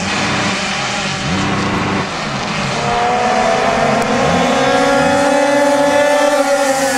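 Pack of racing minimotos (pocket bikes), their small two-stroke engines buzzing at high revs, several engine notes overlapping and shifting in pitch as the bikes pass. From about three seconds in, one engine's note climbs steadily as it accelerates.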